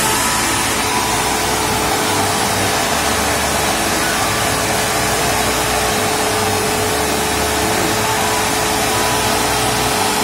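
Bosch GAS 15 PS wet/dry vacuum cleaner running steadily: a constant rush of air with a steady motor whine.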